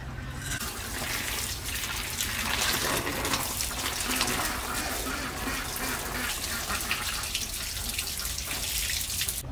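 Water running from a tap and splashing as a large leaf is rinsed under the stream and shaken, water spattering onto the tiled floor. The flow starts about half a second in and stops right at the end.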